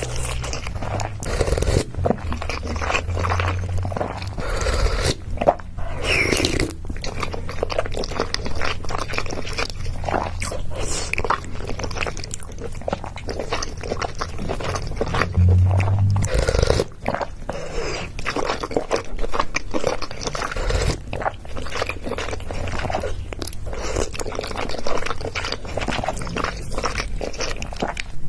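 Close-miked mukbang eating sounds: crunchy food being bitten and chewed, with dense, irregular crackles throughout.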